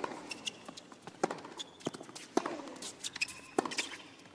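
Tennis ball struck back and forth with rackets in a rally: four sharp hits about a second and a quarter apart. Between the hits, shoes squeak and scuff on the hard court.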